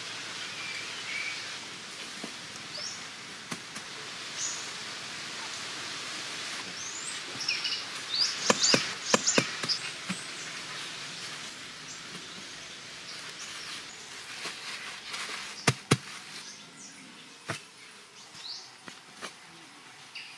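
Outdoor forest ambience: a steady high insect hiss with scattered short bird chirps. A few sharp taps and clicks come through, clustered about halfway in and again near the three-quarter mark, the loudest sounds here.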